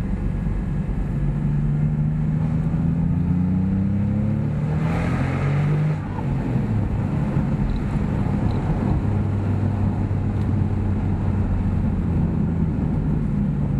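Porsche 997.2 Turbo's 3.8-litre twin-turbo flat-six, through Fabspeed 70 mm Maxflo mufflers, heard from inside the cabin with the top down. The engine note rises under acceleration for about four seconds, then a brief rush of noise and a short dip in level come about five to six seconds in. After that it settles to a steady cruising tone.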